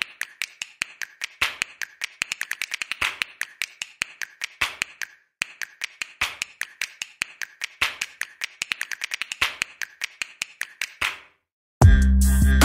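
Rapid, uneven clicking like keys being typed, a typing sound effect laid over text coming up on screen. Near the end it cuts to loud electronic music with heavy bass.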